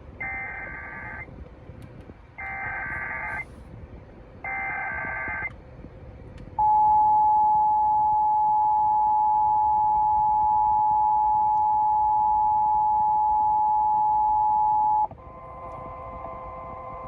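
Emergency Alert System test tones heard over AM radio in a car. First come three short bursts of warbling SAME digital header data. Then comes the steady two-tone EAS attention signal, held for about eight seconds, which cuts off and leaves a faint steady tone and static.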